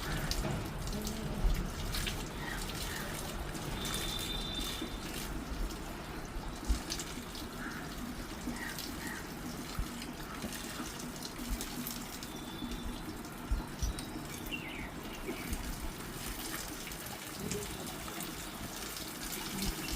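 Steady running water, as from a tap or hand shower, with scattered small knocks and splashes.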